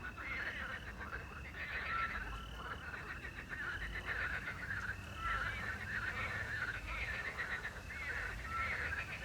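A chorus of frogs croaking continuously at a river at night, many calls overlapping. A short steady note recurs about every three seconds above the croaking.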